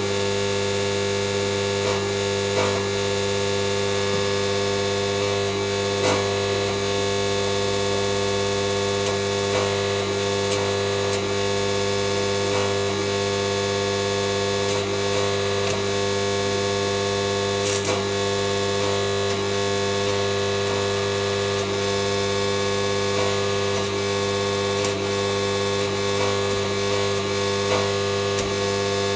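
Stick-welding arc from an MMA inverter welder burning a rod steadily: a continuous crackle and sizzle over a steady hum, with occasional small sharp pops.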